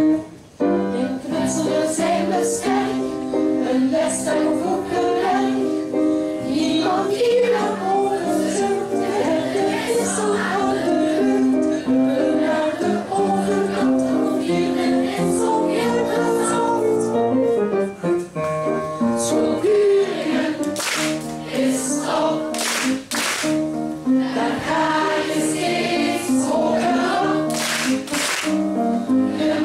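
Children's choir singing a school song in unison, with handclaps in the last part.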